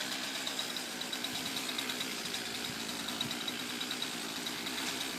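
Chainsaw engine idling steadily, with a fast even putter and no revving.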